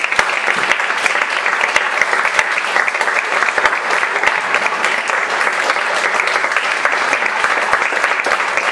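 Steady applause, many hands clapping together.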